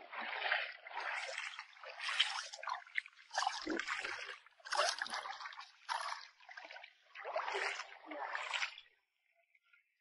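Rubber boots wading through shallow seawater: a splash and slosh with each step, about one a second, stopping shortly before the end.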